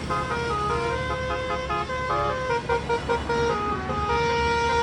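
Bus 'telolet' Basuri melody horn playing a quick tune of short stepped notes, over a low rumble.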